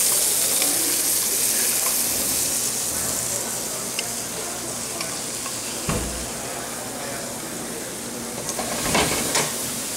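Oil sizzling in a hot sauté pan where red snapper fillets, garlic and tomatoes are frying, slowly getting quieter. A few light clicks and one dull thump about six seconds in.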